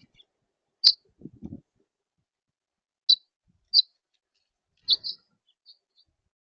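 Small songbird giving short, sharp, high chirps one at a time, about six in all, with a few soft low knocks about a second and a half in.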